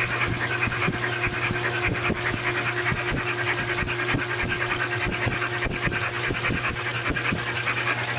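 Toyota 2JZ inline-six turned slowly by an electric motoring stand, with no combustion and its valve covers off: a steady electric hum with rapid, uneven ticking from the exposed twin-cam valvetrain.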